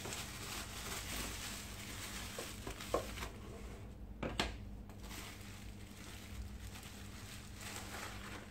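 Bubble wrap crinkling and rustling as it is handled and pulled away from thick cardboard jigsaw pieces, with a couple of light taps about three and four and a half seconds in.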